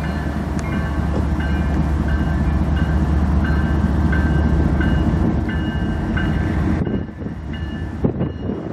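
The diesel locomotives of a CN freight train run as it approaches, with a heavy, steady low engine rumble that drops away about seven seconds in. A short ringing tone repeats about once a second over it.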